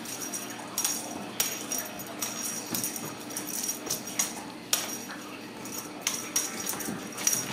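Ragdoll kittens' paws and claws tapping and skittering on a hardwood floor as they pounce and play: irregular sharp clicks and taps, the sharpest a little under five seconds in.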